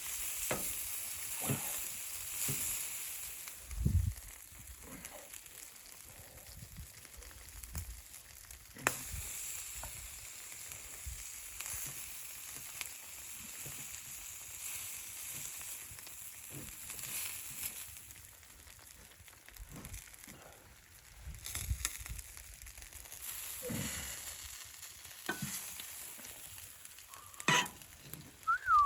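Steady sizzling with scattered pops and soft knocks, from the hot tent's wood stove. A short whistling glide comes near the end.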